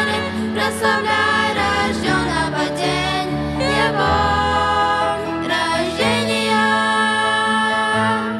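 A woman and two girls singing a Christmas song into microphones over instrumental accompaniment with sustained low notes.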